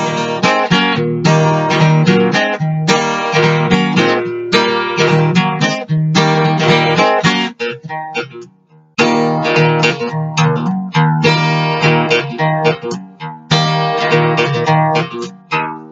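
Instrumental acoustic guitar music, plucked and strummed, dropping out briefly about eight and a half seconds in before picking up again.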